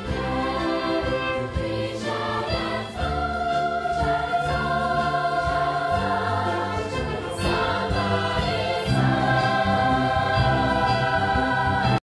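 A choir of students singing a song with musical backing.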